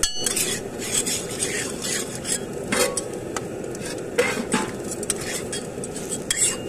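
A dosa cooking on a hot iron griddle: a steady hiss with scattered metallic clinks and scrapes. Near the end, a metal spatula scrapes across the iron as it slides under the dosa to fold it.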